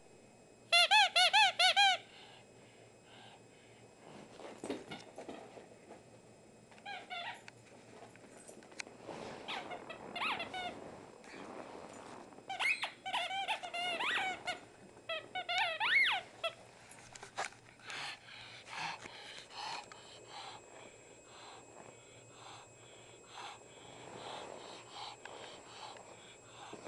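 Squeaker in a small plush toy cow being bitten and chewed by a Pekingese dog, giving runs of short, wavering squeaks. The loudest runs come about a second in and again after about fifteen seconds; the later squeaks are fainter and more scattered.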